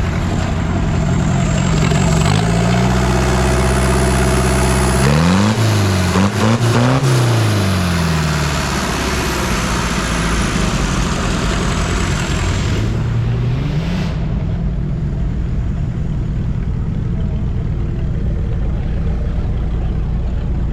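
Off-road 4x4 engine revving under load. The pitch climbs about two seconds in, swings up and down several times in quick succession a few seconds later, and rises once more before settling to a steadier run.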